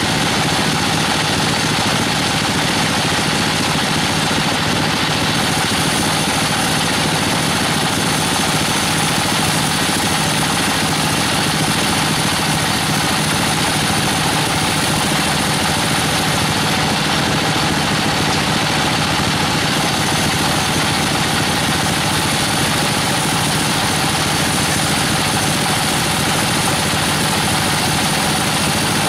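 Band sawmill running and cutting through Albizia procera (wangkal) timber: a steady, unbroken machine noise of the running blade and its drive.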